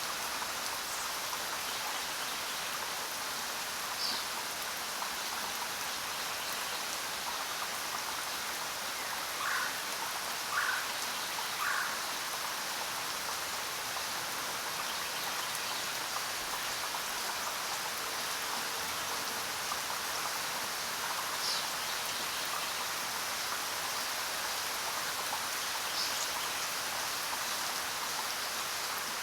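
Steady rain falling in a jungle, an even hiss of drops with no letup. About a third of the way in a creature calls three times in quick succession, and a few faint high chirps sound here and there.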